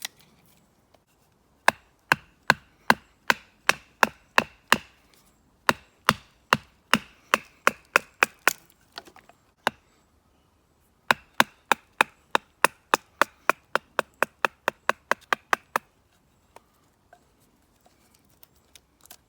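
A wooden baton knocking on the spine of a carbon-steel bushcraft knife, driving the blade through a piece of hard beech. Sharp, regular knocks, two to three a second, in three runs with short pauses between.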